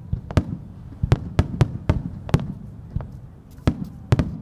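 Aerial firework shells bursting in quick succession: around ten sharp bangs at uneven intervals over a continuous low rumble.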